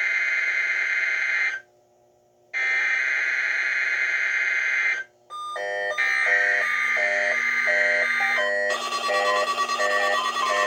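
NOAA Weather Radio test signal: long buzzing digital data bursts of the emergency alert header, two of them about a second apart. A third burst comes with a pulsing electronic tone pattern, and about nine seconds in a loud steady alarm tone starts.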